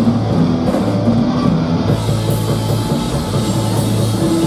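Live rock band playing: electric bass holding low notes under electric guitar and a drum kit with cymbal hits.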